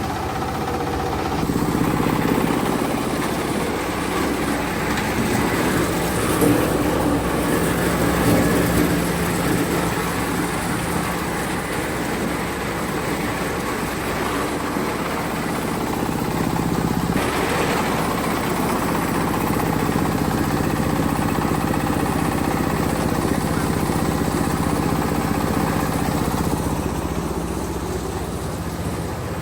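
Jiang Fa 30 hp diesel engine running steadily, driving a corn sheller on a test run. The engine note shifts in pitch about 2 s in and again about 17 s in.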